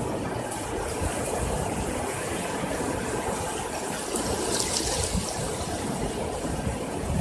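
Sea surf washing steadily onto a sandy beach, a continuous rushing noise with a low rumble underneath.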